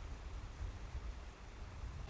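Wind buffeting the microphone: an uneven low rumble that rises and falls in gusts, over a faint steady hiss.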